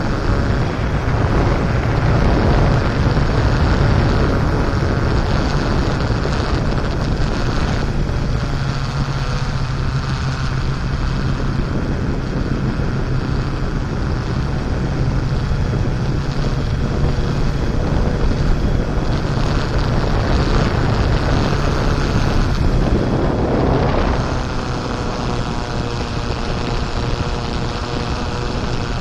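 Off-road vehicle's engine running under way, its pitch shifting as the revs change, with rough driving noise and wind buffeting the microphone.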